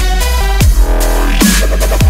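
Loud electronic music in a dubstep style: a deep sub-bass, held synth tones and heavy beats with bass hits that drop in pitch.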